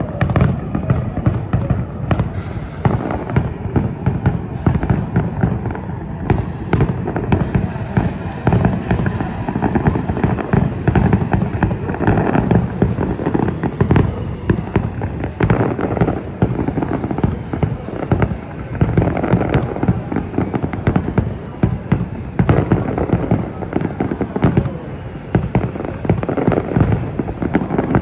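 Fireworks display: a dense, continuous barrage of bangs, booms and crackling bursts.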